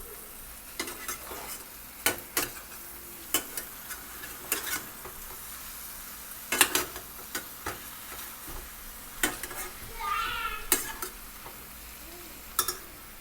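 Chicken wings sizzling in a frying pan of oil, butter and marinade as they are turned over with a utensil. Sharp irregular clicks of the utensil against the pan sound over the steady sizzle.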